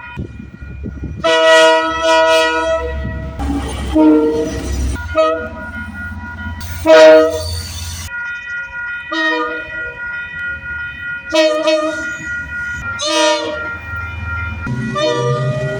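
Train horns sounding a string of separate blasts, some short and some held for a second or more, the chord changing from blast to blast as different trains sound; the loudest comes about seven seconds in. A low rumble of the trains runs underneath.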